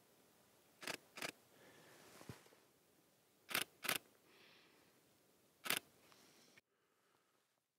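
Camera shutter clicks: five sharp clicks, in two quick pairs about a third of a second apart and then one single, over a faint steady hiss.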